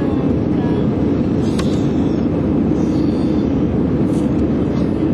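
Steady roar of jet engines and rushing air heard inside an airliner cabin, shortly after take-off.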